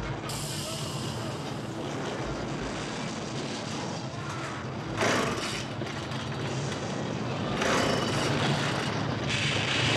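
Two-stroke chainsaw engine running steadily, getting louder toward the end.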